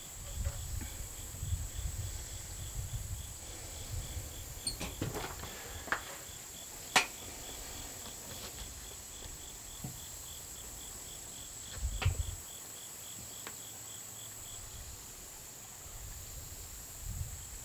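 Crickets chirping in a steady pulsing rhythm over a continuous high insect whine; the chirping stops near the end. Under it, a rifle is handled on a shooting bench: low rumbling handling noise and a few light clicks and knocks, the sharpest about seven seconds in.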